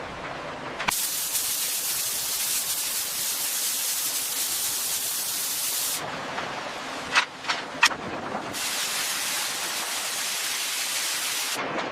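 High-pressure washer jet spraying against a ship's hull, a loud steady hiss that runs for about five seconds, stops, and starts again for about three more. In the pause there are two short sharp sounds.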